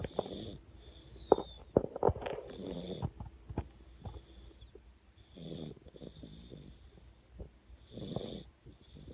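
Snoring: about four rattling snores, roughly two to three seconds apart, with a few sharp snorts between one and two seconds in.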